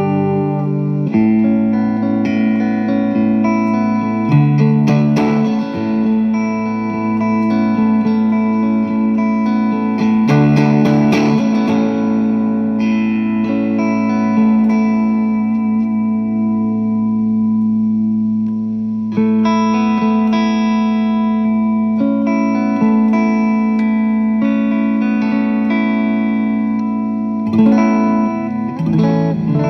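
Electric guitar played through an Alien Rabbit Magic Drive tube overdrive pedal into a Fender amp, set for low gain: lightly overdriven chords and single notes left to ring, with a couple of busier strummed passages.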